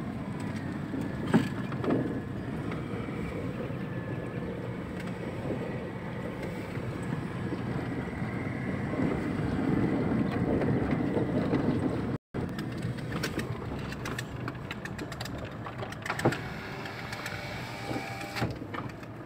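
Car driving on a dirt road, heard from inside the cabin: a steady rumble of engine and tyres, with a few short knocks and rattles.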